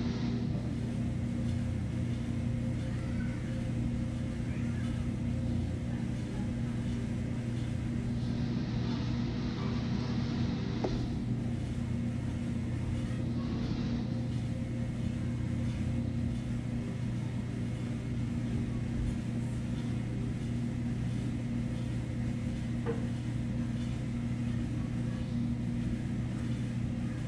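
Steady low mechanical hum with a constant pitch, and a few brief faint rustles.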